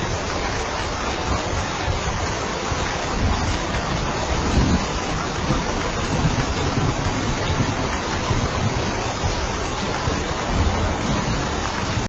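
Steady rain falling: a dense, even hiss with a low rumble underneath that holds constant throughout.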